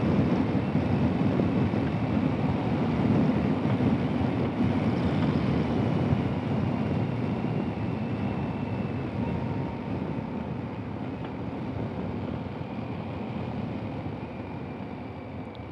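Honda Pan European ST1300 touring motorcycle riding at road speed: wind rushing over the microphone with the engine running steadily underneath, slowly getting quieter.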